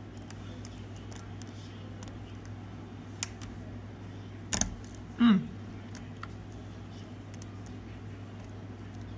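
Small clicks and taps of a precision screwdriver and a tiny screw against an iPhone's metal frame as the screw is worked into place, with a sharper click about four and a half seconds in. Right after it comes a short voice sound falling in pitch, the loudest thing heard, over a steady low hum.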